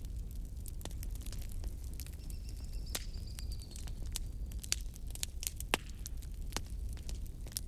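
Wood fire burning in a fireplace: irregular crackles and pops over a low rumble, with a faint high whistle lasting about two seconds in the middle and one sharper pop near the end.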